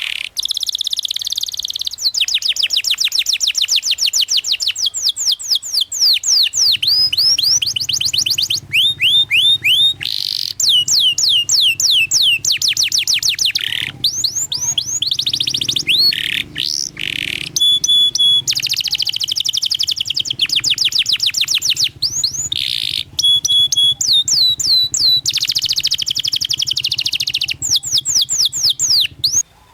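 Domestic canary singing a long, nearly unbroken song of fast rolling trills and rapid repeated chirps, with short pauses between phrases.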